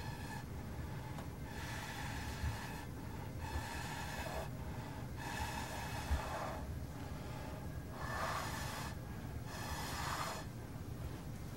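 A person blowing out by mouth in short puffs, about six breaths each lasting up to a second or so, pushing wet resin across the board.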